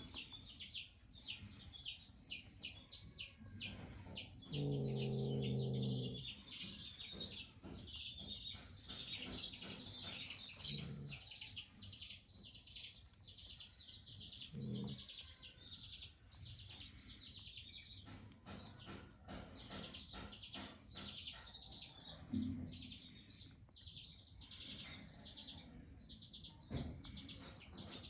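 Animal calls: rapid high-pitched peeping repeats on and on, with one louder, drawn-out low call about five seconds in and a few short low calls later.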